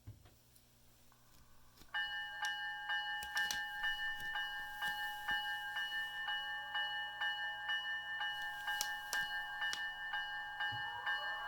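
Locomotive bell sound from the WowSound DCC decoder in a Bachmann GP35 model diesel, coming on suddenly about two seconds in and clanging steadily about two to three times a second through the model's small speaker. The bell switched itself on at start-up. A rising whine comes in underneath near the end.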